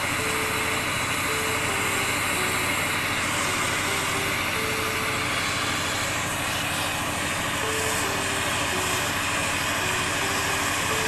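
Jeweler's blow torch burning with a steady rushing noise as it melts gold in a crucible.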